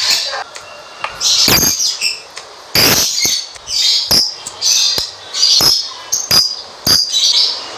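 Lovebirds chattering: a quick run of shrill chirps and squeaks in irregular bursts, with sharp clicks between them.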